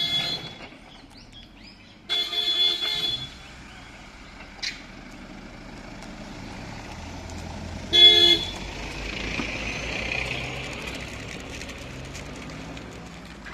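Car horn honking three times: a blast just at the start, a longer one of about a second, and a short toot about eight seconds in. After the last toot a car drives past, its engine and tyres swelling and fading.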